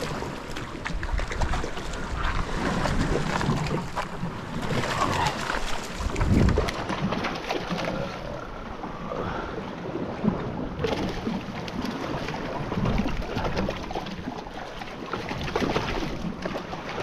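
Wind buffeting the microphone over the wash of the sea, an uneven rumbling noise that swells and fades.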